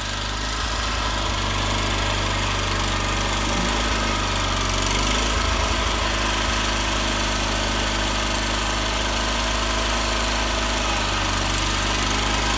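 Gravely 20-G Pro garden tractor engine running steadily, growing a little louder over the first couple of seconds and then holding even.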